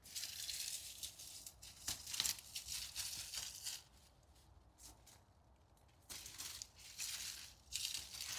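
Dry leaves and stems of a dead melon vine crackling and rustling as it is pulled down and cut away. The noise comes in two spells, with a quiet gap of about two seconds in the middle.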